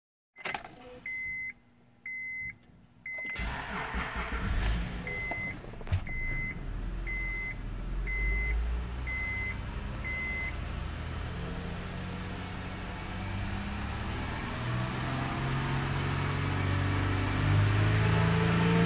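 2005 Honda Pilot's 3.5-litre V6 starting about three seconds in, idling, then revved up steadily in the last few seconds. A dashboard warning chime beeps about once a second, three times before the start and six times after.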